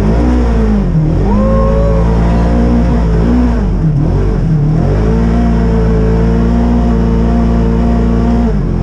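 Polaris RZR High Lifter side-by-side engine revving up and down several times while it is driven through snow, then holding steady high revs about five seconds in, with a brief drop near the end.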